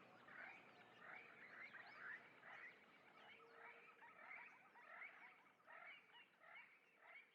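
Faint ambience of small animals chirping: many quick, overlapping chirps.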